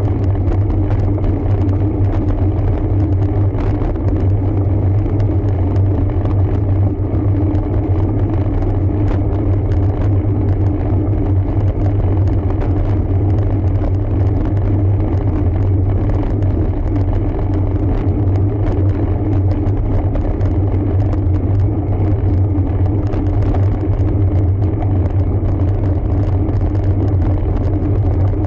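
Steady, loud low rumble of riding noise on a road bike's onboard camera, wind on the microphone mixed with tyre and road noise, unchanging throughout.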